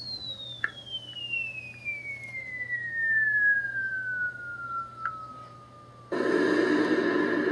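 Falling-bomb sound effect: a long whistle that drops steadily in pitch, then a sudden loud explosion about six seconds in that carries on as a dense blast of noise.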